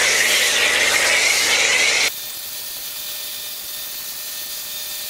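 Kärcher K2 electric pressure washer running, with its motor humming and the loud hiss of spray through a snow foam cannon onto the truck. About two seconds in the hum and loud hiss stop suddenly, and a quieter, steady spray hiss goes on.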